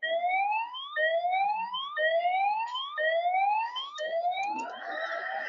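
Siren-like whooping sound effect from the cartoon's soundtrack: a tone sweeps upward, then restarts low, about once a second for five whoops, turning into a wavering warble near the end.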